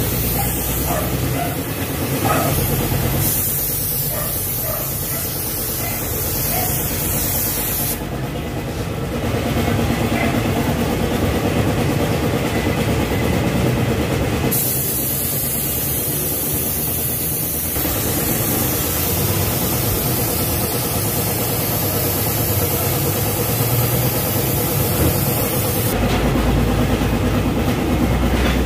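Compressed-air paint spray gun hissing as it lays the top coat on a car bumper, in long passes that stop and start, over a steady low hum.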